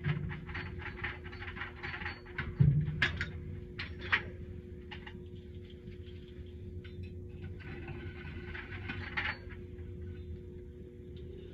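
Handling noises over a steady low hum: rhythmic scratching strokes at first, then a heavy thump about two and a half seconds in, a few sharp clicks, and lighter rustling and clicks.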